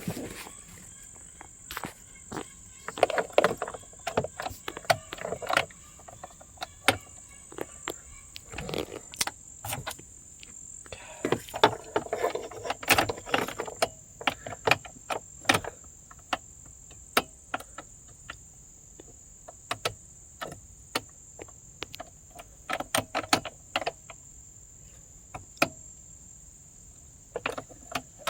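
Steady high-pitched insect buzz, like crickets, with many scattered clicks and knocks and a few stretches of rustling.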